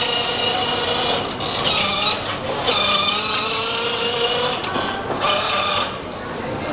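Plastic wheels of children's ride-on toy cars and a scooter rattling and clicking over a hard floor, with a steady mechanical whir.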